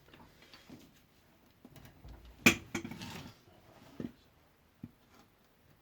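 Metal tools being handled and put down: scattered knocks and clinks, with one sharp clank and a short rattle about two and a half seconds in, then two single knocks. No grinder is running.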